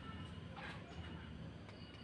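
A faint pause in a green leafbird's (cucak ijo) song: a few soft, short chirps over a low background hum.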